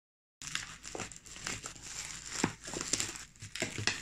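Black plastic bubble-wrap mailer crinkling and crackling as it is cut open with scissors, with irregular sharp crackles. Starts abruptly about half a second in.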